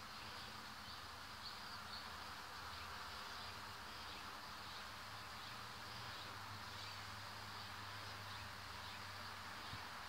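Faint steady insect buzzing.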